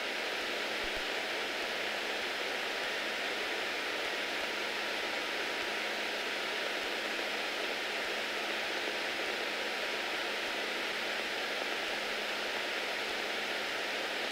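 Steady, even hiss from the aircraft's headset intercom and radio audio line while the Bonanza F33A taxis with its engine running. No engine note comes through.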